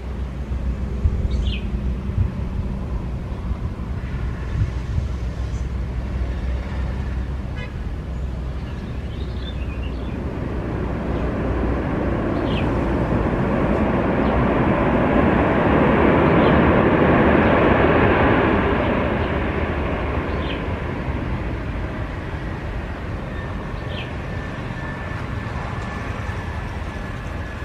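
Airliner passing the airfield, its broad engine noise swelling slowly to a peak about two-thirds of the way through, then fading. A few short bird chirps sound over it.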